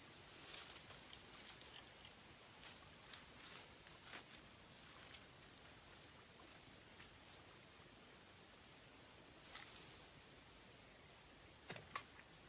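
Insects singing a steady, high, two-toned drone, faint, with soft rustling and a few sharp clicks, the loudest near the end.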